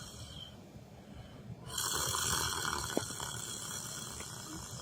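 A person snoring in sleep: one breath tails off near the start, then after a pause of about a second the next snore swells up and slowly fades, with a brief click about three seconds in.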